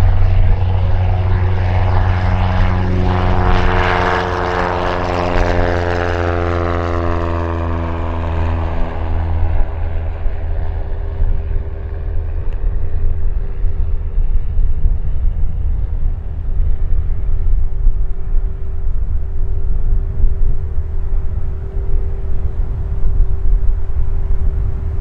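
Van's RV-7 light aircraft's propeller engine droning on approach over a steady low rumble, settling into a steady note through the second half. In the first ten seconds a passing engine note falls slowly in pitch.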